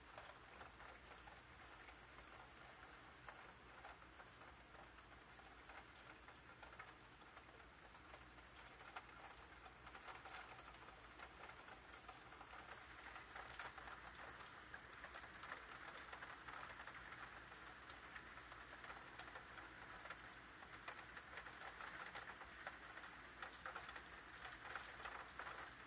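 Faint steady rain falling, with scattered close drops ticking. It grows a little louder about halfway through.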